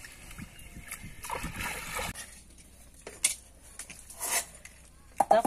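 Muddy pond water splashing and sloshing around a person wading in it, cutting off abruptly about two seconds in. After that come a few short, separate taps.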